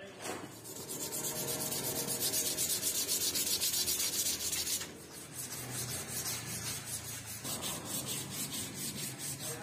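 Sandpaper rubbing quickly back and forth along a round wooden axe handle, hand-sanding it smooth in rapid, even strokes. The strokes grow softer about five seconds in.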